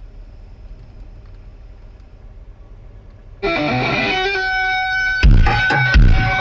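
A faint low hum, then about three and a half seconds in music starts abruptly through a car audio system: electric guitar over heavy, deep bass hits, played as a test track for a subwoofer box.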